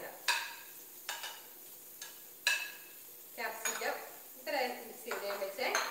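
A metal spoon clinking against a ceramic plate and bowl as salad vegetables are served: a few sharp clinks with a short ring in the first half, then busier scraping and handling.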